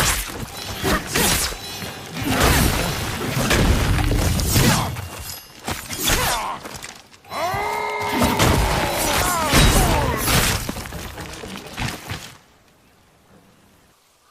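Katana blades clashing in a rapid run of metal strikes and hits, with a ringing metal tone that bends downward about halfway through. It stops abruptly about two seconds before the end.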